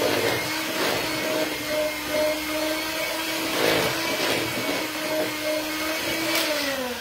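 Electric hand mixer running steadily, its beaters mixing a coconut and hazelnut flour batter and knocking against the bowl a few times. The motor winds down near the end.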